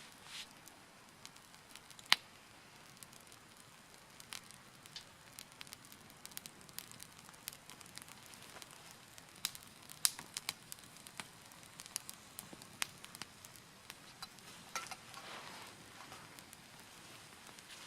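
Wood fire burning in a Picogrill folding fire pit, crackling with irregular sharp pops and snaps, and a short hiss about fifteen seconds in.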